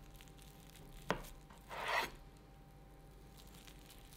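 A kitchen knife slicing through a rolled datemaki omelette on a wooden cutting board. A light click comes about a second in, then one short rasping cut that swells and stops at about two seconds.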